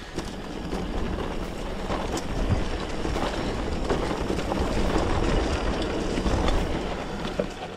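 Mountain bike rolling over a rough track: a steady rumble of tyre noise with many small clicks and rattles, growing louder toward the middle and easing near the end.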